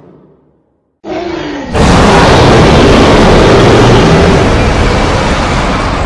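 Custom-made Indominus rex roar sound effect: after a second of silence, a brief growl with a falling pitch, then from just under two seconds in a loud, long roar that slowly fades.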